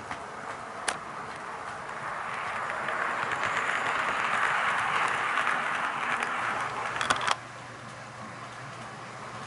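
HO-scale model freight train, an EF81 electric locomotive hauling Koki 50000 container flatcars, running past on Kato Unitrack: the rolling noise of wheels and motor swells as it passes close, with small clicks as the wheels cross the rail joints. The sound cuts off suddenly about three-quarters of the way through.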